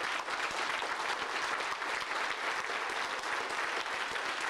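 Audience applauding steadily, many people clapping at once in a large hall.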